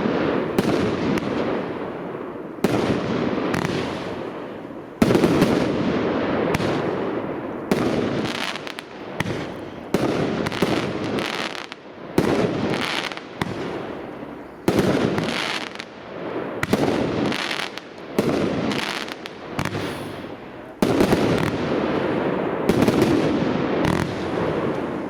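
Single-ignition consumer firework barrage (a 64-shot Cat 3 cake) firing shot after shot. There are loud sharp bangs about one to two a second, each fading away before the next.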